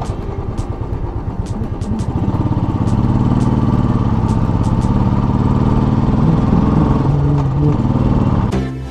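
Royal Enfield motorcycle engine running with a fast, even beat. It rises in pitch and gets louder about two to three seconds in as the bike pulls.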